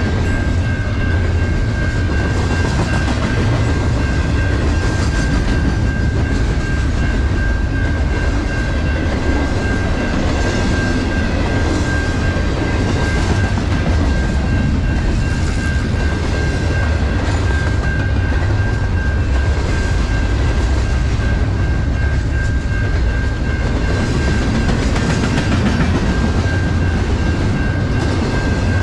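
A long double-stack intermodal container train rolling steadily past: steel wheels on rail give a loud, steady low rumble with a rhythmic clickety-clack as each well car's trucks pass, and a steady high-pitched tone rides above it.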